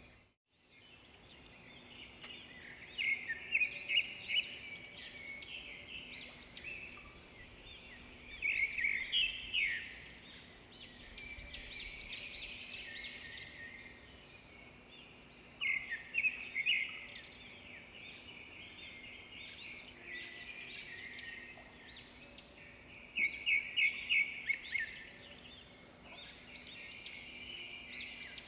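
Several songbirds singing and chirping together, with loud bouts of rapid repeated notes about every seven seconds over a steady background of calls.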